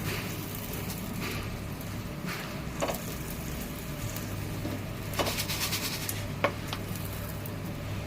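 Butter sizzling on a hot tawa as ladi pav buns roast, with a few short clinks and scrapes of a spatula against the pan.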